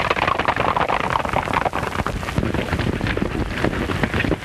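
Hoofbeats of several galloping horses, a dense, continuous clatter of hooves on a dirt trail.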